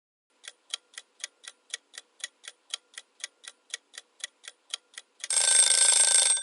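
Countdown timer ticking fast and evenly, about four ticks a second, then a loud ringing alarm starting about five seconds in, signalling that the minute is up. The alarm cuts off after about a second with a short ringing fade.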